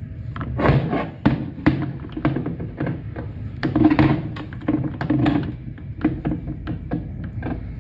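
Transmission parts being handled and moved about during the teardown: a run of irregular knocks, clicks and clunks, with a couple of heavier, scraping handling noises about a second in and near the middle.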